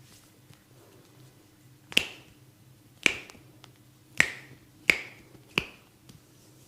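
Five sharp snaps from a barber's hands during a head massage, about a second apart and closer together near the end, the cracks of hair cracking or finger snapping over the head.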